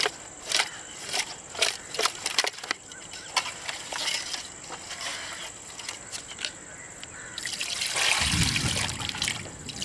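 Pieces of cut rohu fish knocking and clicking against a metal pot as they are handled. About seven and a half seconds in, water starts pouring from a jug onto the fish, louder than the knocks.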